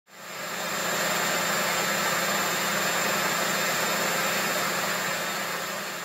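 Miele Novotronic W310 front-loading washing machine on its spin cycle, the drum turning at speed with a steady hum over an even rushing noise. It fades in at the start.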